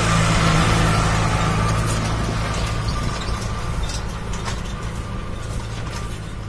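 New Holland tractor towing a trailed crop sprayer, its engine running steadily as it drives past and away, the sound slowly fading after about half a second in.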